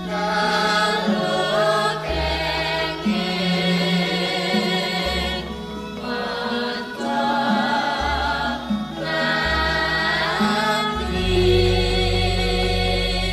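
Javanese gending music: singing with a wavering vibrato over gamelan-style accompaniment and sustained low bass notes that shift every second or two.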